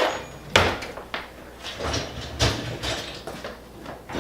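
Kitchen clatter from emptying a dishwasher: several separate knocks of dishes and cupboard or rack movements, the sharpest about half a second in.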